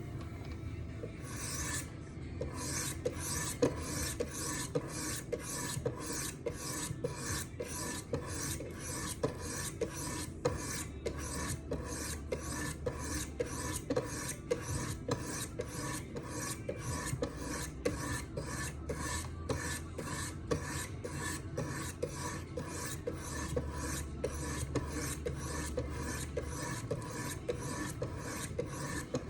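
Wicked Edge guided sharpening system's 400-grit stones stroking along a folding knife's blade, a steady scraping rhythm of about two strokes a second that starts about two seconds in.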